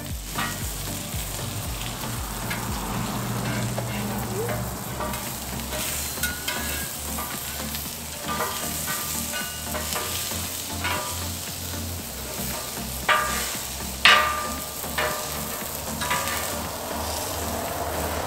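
Onion rings and beef marrow bones sizzling on a hot Pit Boss four-burner flat-top griddle, a steady frying hiss. A steel spatula scrapes and clacks against the griddle plate as the marrow bones are flipped, with the sharpest clacks about three-quarters of the way through.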